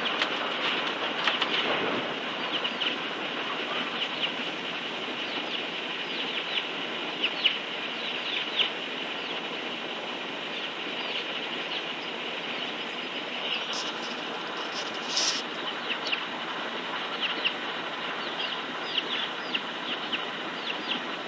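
Chicks peeping over and over in short high notes, several a second at times, as a hen and rooster forage with them, over a steady background hiss.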